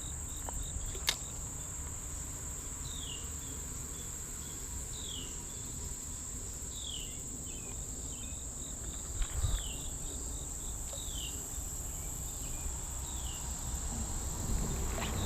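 Insects trilling in one steady, high-pitched unbroken tone, with short falling chirps repeating every second or two over a low rumble. A single click comes about a second in and a brief thump about nine seconds in.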